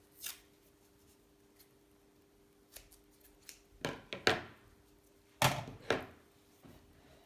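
Adhesive tape being cut and handled as it is wrapped onto a drill bit to mark drilling depth. It comes as a few short snips and crinkles, with two louder clusters in the second half.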